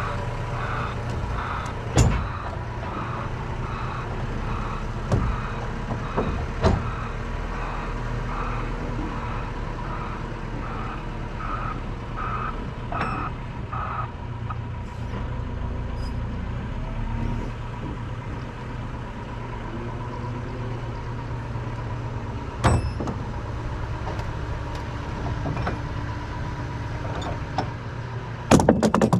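Lorry engine running steadily with a reversing alarm beeping about twice a second, which stops about halfway through. Several sharp knocks fall along the way, and a loud clatter comes near the end.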